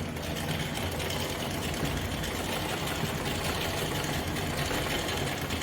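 Sewing machine running steadily, its needle stitching fabric in a fast, even patter over a low motor hum.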